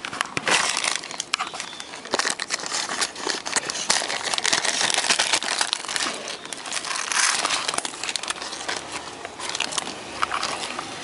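Clear plastic zip bag crinkling as it is handled: a dense run of crackles that eases near the end.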